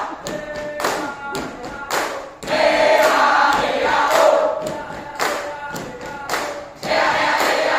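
A group of scouts singing and chanting a yel-yel cheer in unison, loud and rhythmic, punctuated by repeated sharp thumps from the performers' stamps and claps.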